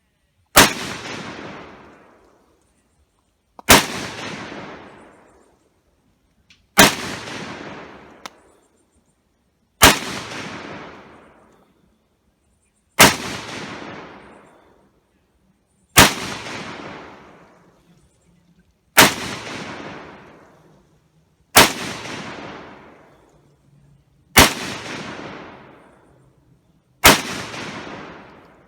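AR-15 rifle fired ten single shots at a slow, steady pace, about one every three seconds. Each shot is followed by a rolling echo that dies away over about two seconds.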